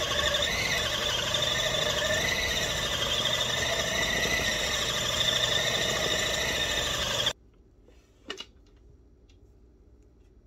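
Food processor motor running at speed as it mixes a stiff vital-wheat-gluten seitan dough, a steady whirring whine whose pitch wavers slightly. It cuts off abruptly about seven seconds in, followed by a single knock about a second later.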